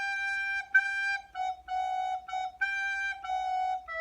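Descant recorder playing a simple phrase of short notes stepping back and forth between G and F sharp, then settling on a long held E near the end.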